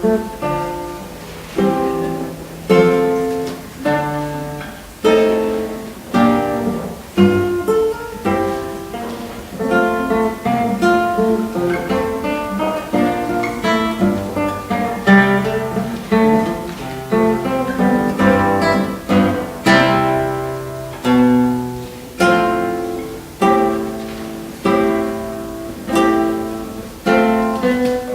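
Instrumental music on acoustic guitar: plucked notes and chords struck about once a second, each ringing and dying away.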